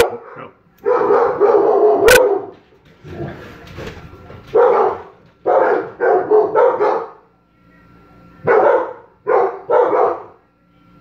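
A dog barking repeatedly, in short bouts of one to three barks, with a sharp click about two seconds in.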